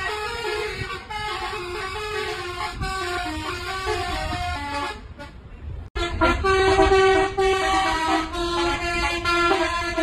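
Bus telolet horn, a multi-tone air horn, playing a quick melody of held notes that step up and down, over a low rumble. It drops away about five seconds in and returns louder after a sudden break.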